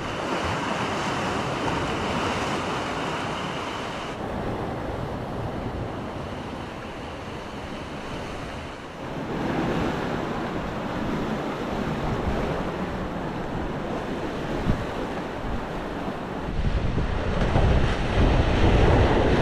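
Sea surf breaking and washing over a rocky shore, with wind rumbling on the microphone, heaviest near the end.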